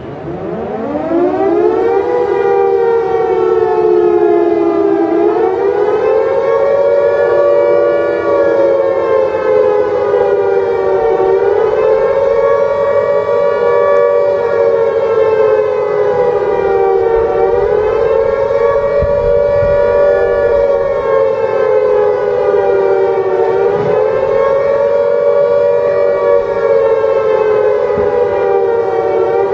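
A siren winds up over about two seconds, then wails steadily, its pitch slowly rising and falling about every six seconds.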